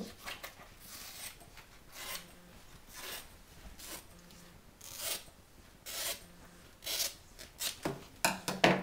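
Scissors cutting through a fresh banana leaf, a crisp snip about once a second, with the leaf rustling as it is handled. The sounds come closer together and louder near the end.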